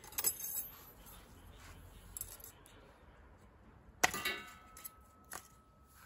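A brief clatter, then about four seconds in a sharp metallic clang whose ring hangs on for about two seconds, with a lighter click a second after it.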